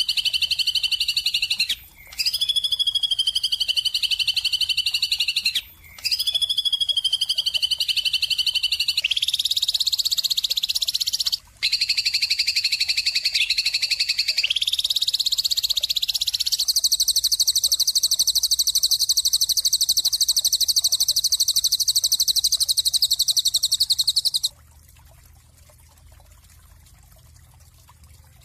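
A bird sings long, rapid, buzzy trills, each held for several seconds with a brief gap between them. The last and longest trill is steady and stops suddenly about three-quarters of the way through, leaving only a faint low background hum.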